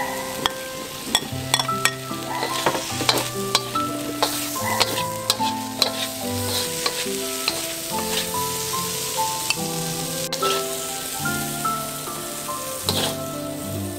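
Stir-frying in a wok: a metal spatula scraping and clicking against the pan over a steady sizzle as string beans, shrimp and scrambled egg are tossed. Light background music plays throughout.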